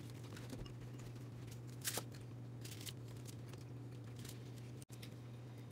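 Faint eating and table-handling sounds: a few short clicks and rustles as food is picked up and handled over a foil-covered table, over a steady low hum.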